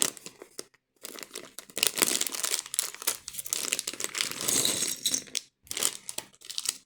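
Plastic LEGO parts bags crinkling and rustling as they are handled, in irregular bursts with short pauses.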